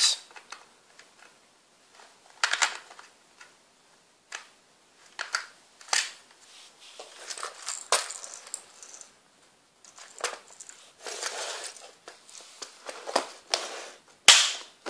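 Clear plastic Plano 3620 tackle box and the lures inside it being handled: scattered sharp plastic clicks and knocks with short rattles between them, and a sharper snap near the end as the lid is shut.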